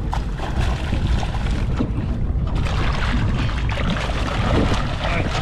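Water splashing as a hooked sierra mackerel thrashes at the surface beside the boat's hull, growing stronger in the second half as it is grabbed, over a steady rumble of wind on the microphone.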